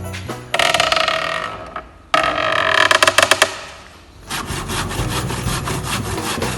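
Live Foley sound effects made by hand: two sudden rasping, scraping swells that each fade over about a second and a half, followed by a steady scraping rustle with rapid small clicks.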